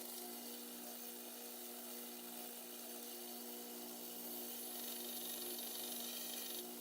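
Steady motor hum with an even abrasive hiss over it, typical of a small power sander working a pocket knife's new handle scales.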